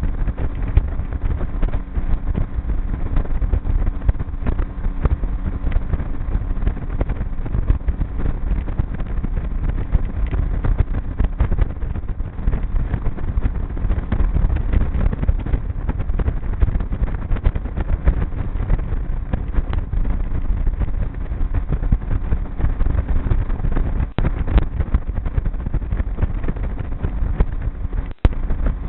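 Outboard motor of a small aluminium boat running steadily under way, with wind buffeting the microphone.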